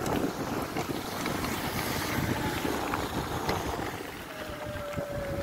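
Wind buffeting the microphone and tyre rumble of a mountain bike rolling over a rough gravel path, with scattered rattles and knocks from bumps. A faint whine from the brushless front hub motor sounds through it and falls slightly in pitch near the end as the bike slows.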